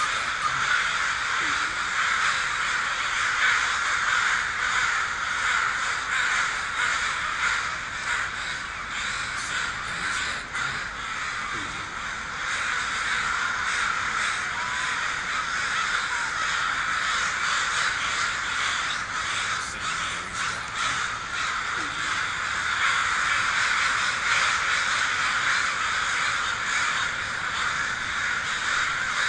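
A large flock of crows cawing continuously, many calls overlapping at once with no pause.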